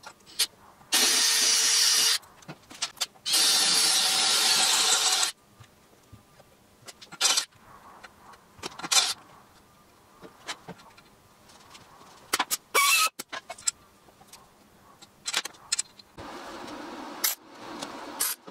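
Cordless drill running in two bursts of a second or two, about one second in and again about three seconds in, drilling a hole through a chopper frame's steel backbone tube for a weld-in gas tank mounting bung. Scattered clicks and knocks follow. Near the end there is a quieter steady hiss as the bung is tack welded.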